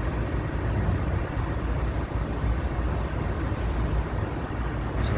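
Steady low outdoor rumble of distant traffic, with wind buffeting the microphone.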